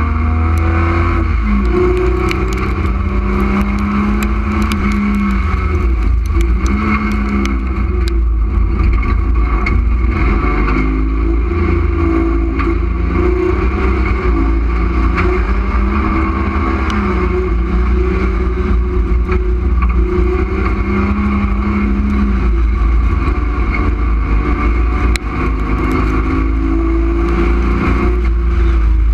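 Street stock race car's engine heard from inside its stripped cabin, running hard on a dirt track, its pitch rising and falling several times as the driver accelerates and lifts off. Scattered sharp ticks and rattles sound over a heavy low rumble.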